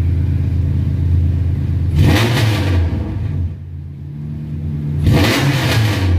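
Proton Wira's MIVEC four-cylinder engine idling steadily, then revved twice in short throttle blips, about two seconds in and again about five seconds in, each surge loud and lasting under a second before it drops back to idle.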